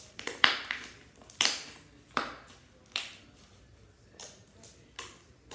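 Slime squished and pressed down by hand, giving a string of sharp, short clicking pops about one a second.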